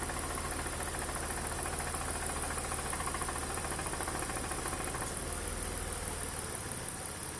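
BMW E46 320i straight-six engine idling steadily, with the abnormal engine-bay noise that the car was recorded for and a steady high-pitched whine.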